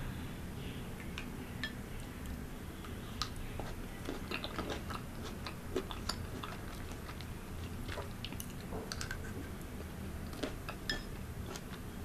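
Metal spoon clicking and scraping against a glass bowl as it scoops fruit out of liquid, with soft chewing; many small, irregular clicks.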